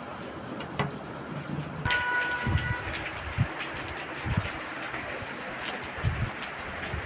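Steady rain falling, an even hiss of drops on surfaces, with a few dull low thuds and a short steady tone about two seconds in.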